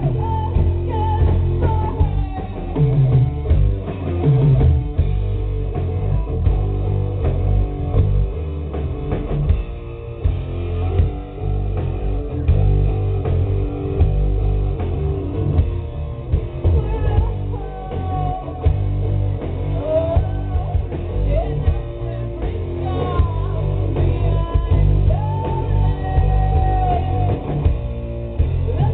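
Rock band playing live: electric guitars and a drum kit, with a woman singing over them.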